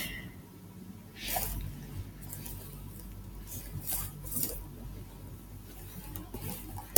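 A few faint, scattered computer keyboard keystrokes over a low steady room hum.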